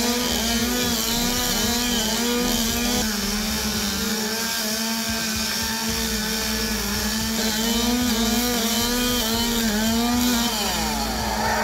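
Chainsaw running at high revs, its pitch dipping and rising over and over as it cuts through a row of wooden stick branches set into a log in a limbing contest. A second engine note glides in near the end.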